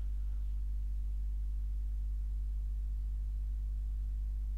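Steady low hum with a faint hiss and nothing else: the recording's background noise between spoken lines.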